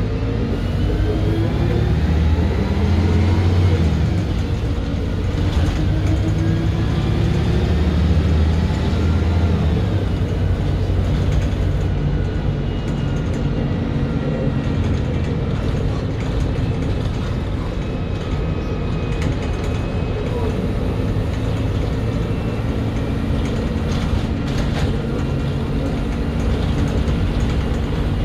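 Cabin sound of a MAN 18.240LF single-deck bus under way. The rear-mounted six-cylinder diesel rises in pitch as the bus accelerates through its gears for the first several seconds, then runs steadily, with the bus body and fittings rattling.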